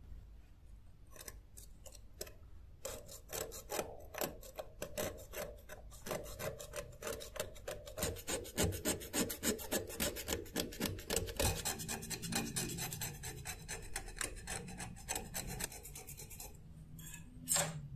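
Steel utility-knife blade scraping flaky rust off a corroded steel knife blade in quick repeated strokes, a dry scratching rasp. One louder stroke comes near the end.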